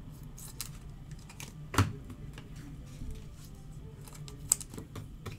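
Trading cards and clear plastic top loaders handled on a table: scattered light clicks and taps, with one louder knock about two seconds in and a sharp click later on.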